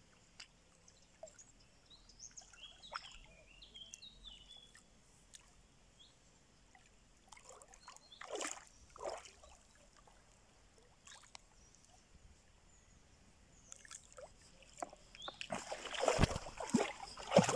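Hooked carp splashing at the surface beside a landing net: two short splashes about eight and nine seconds in, then a longer stretch of louder water sloshing near the end as the fish is drawn into the net.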